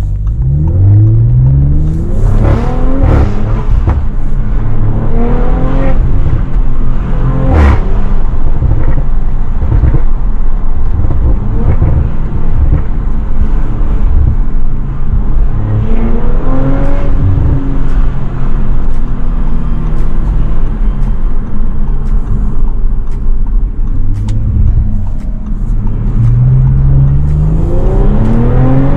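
Audi RS5 B9's twin-turbo V6 engine and resonator-deleted exhaust heard from inside the cabin, pulling hard under acceleration several times with rising revs. A few sharp exhaust pops and cracks are heard, one loud one a little under a third of the way in.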